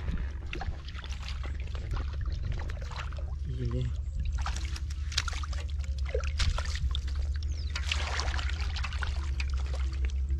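Hands splashing and sloshing in shallow muddy water while groping in the mud for catfish: many small, irregular splashes and trickles, over a steady low rumble.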